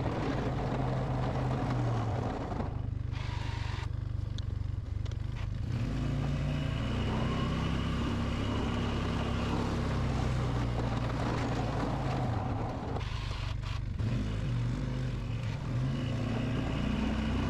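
1997 Polaris Sportsman 500 ATV's single-cylinder four-stroke engine running steadily as it pushes a snow plow along a driveway, with two short lulls where the higher part of the sound drops away.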